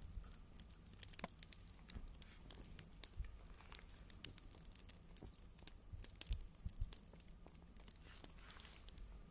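Twigs smouldering and crackling in a small Firebox Nano wood-burning stove: faint, irregular snaps and ticks as the smoky kindling starts to catch.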